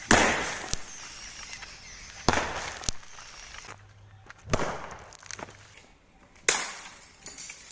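Fluorescent tube lights bursting as they are kicked: four sharp pops about two seconds apart, each dying away quickly.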